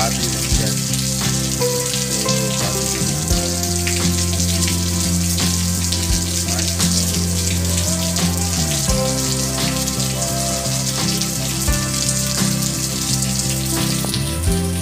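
Heavy tropical rain falling steadily, an even hiss of downpour on leaves and wet ground. A slow background music track runs underneath, its low chords changing every couple of seconds.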